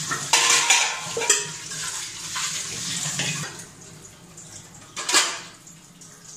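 Stainless steel bowls and pans clanking against each other in a kitchen sink as they are washed, with a few sharp metal knocks. Water runs from the tap through the first half and then stops.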